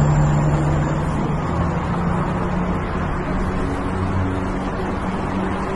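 Heavy truck's diesel engine running steadily as it drives past, a low hum with a steady rushing noise over it, easing slightly toward the end.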